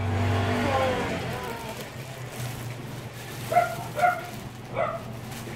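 A dog barks three short times in the second half, over the crinkle of a plastic shipping bag being opened.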